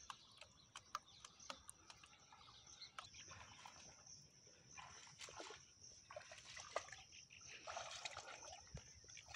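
Faint, irregular sloshing and splashing of legs wading through shallow water choked with water hyacinth, over a faint steady high hiss.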